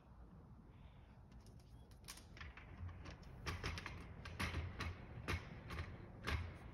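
Irregular light clicks and taps from a small wooden wheeled vehicle being handled and set up by hand on a wooden gym floor, growing denser and louder from about halfway through.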